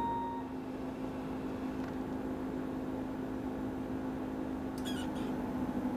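Steady low hum of femtosecond laser surgical equipment during flap creation, with a short electronic beep at the very start and a few faint clicks about five seconds in.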